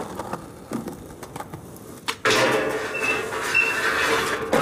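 Skateboard rolling, a sharp clack about two seconds in, then the deck sliding down a wet steel stair handrail: a loud sustained metal scrape with a steady hum and a faint high ring from the rail, ending in a knock near the end.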